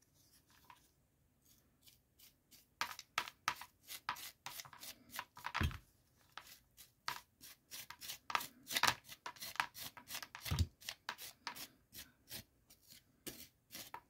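Pumpkin pulp and seeds being scraped and scooped out of a hollowed pumpkin: quiet at first, then from about three seconds in, quick irregular scraping strokes, a few a second, with two dull thumps.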